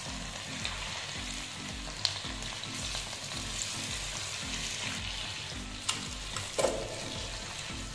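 Chicken pakoda deep-frying in hot oil in a kadai: a steady sizzle, with a few sharp clinks as a steel slotted spoon turns and lifts the pieces against the pan.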